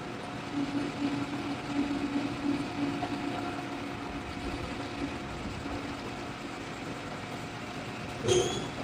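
Metal lathe running steadily with an even machine hum. A brief, louder metallic sound with a high ring comes near the end.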